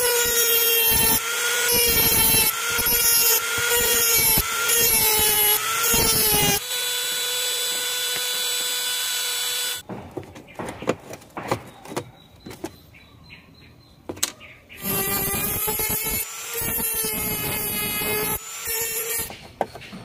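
Handheld mini rotary tool (mini grinder) with a thin cut-off disc whining at high speed, its pitch sagging again and again as the disc is pressed on stripped, rusty screw heads to heat them loose from the plastic washing-machine top. It runs freely at a steady pitch for a few seconds and stops about ten seconds in. After a quieter stretch of small clicks and scrapes, it starts again and is pressed on the screws once more.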